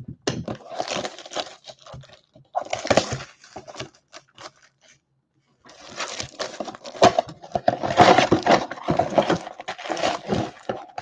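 Cellophane shrink wrap crinkling and tearing as it is pulled off a cardboard trading-card box, in three spells: briefly near the start, again about three seconds in, and longest from about six to ten seconds in.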